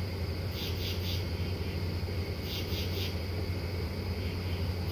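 Night insects calling in short groups of about three chirps, repeating roughly every two seconds, over a steady low hum.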